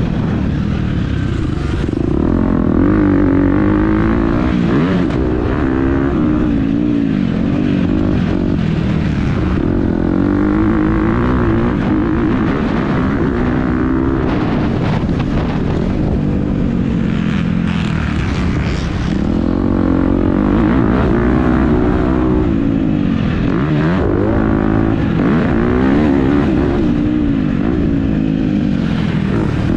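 Motocross dirt bike engine being ridden hard, revving up and dropping back over and over as the rider works the throttle and gears around the track.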